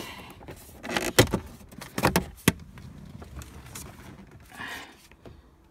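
Plastic dashboard speaker grille being pried up by hand, giving a series of sharp clicks and snaps as its retaining clips pop free, then a softer rattle near the end.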